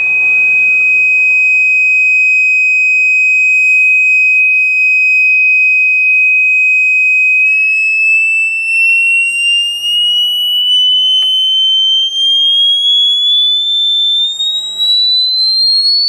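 Motorola piezo tweeter driven by an HP 3310A function generator, giving a loud, piercing single tone at 2,500 hertz. The tone holds steady for about seven seconds, then climbs slowly and smoothly in pitch, nearly an octave higher by the end, as the generator is swept upward.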